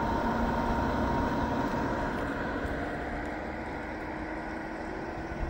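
Zero Breeze Mark 2 portable air conditioner running on its top "rocket mode" setting: a steady whir of fan and air with a faint hum, not very loud.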